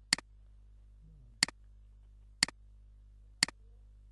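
Computer mouse button clicked four times, about once a second, each click a quick double snap of press and release, over a faint low hum.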